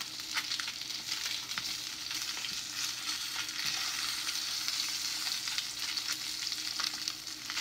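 Salmon fillets sizzling skin-side down in a hot frying pan: a steady frying hiss with scattered small crackles as the skin sears to a crisp crust.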